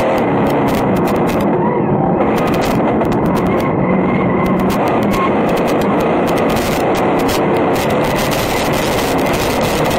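Vintage modified dirt-track race car's engine running hard under racing load, heard from inside the cockpit, its note rising and falling a little over a dense mechanical and road noise. Sharp clicks and crackles come through all along.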